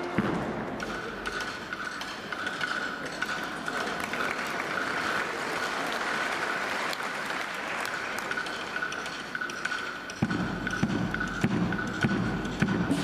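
Arena audience applauding after a military band's piece ends, with a steady high tone running through the clapping. About ten seconds in, the band's percussion and low brass start the next piece.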